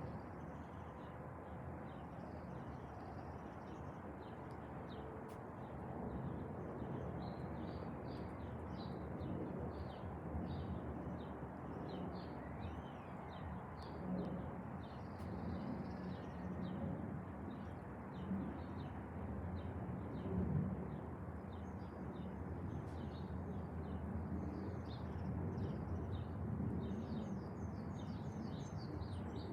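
Small birds chirping repeatedly over a steady low background rumble.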